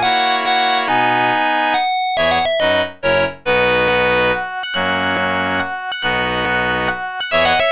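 Samsung SGH-T100 polyphonic ringtone played back as a MIDI tune: a synthesized keyboard melody over bass notes, stepping from note to note. It breaks off briefly about two seconds in, then goes on.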